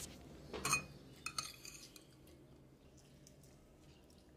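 Metal spoon scraping and clinking against a ceramic bowl and plate while spooning chopped onion and cilantro onto a carnitas taco: a few light clinks in the first two seconds, then only faint ticks.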